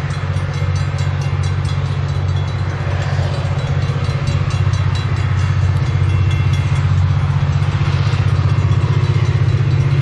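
Approaching EMD GT22MC diesel-electric locomotive running with a steady low drone that slowly grows louder as it nears. Level crossing bells ring alongside it.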